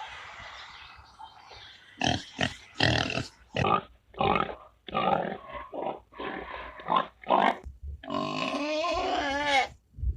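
Pig grunting in a run of about ten short grunts, then giving a longer call with a wavering pitch near the end.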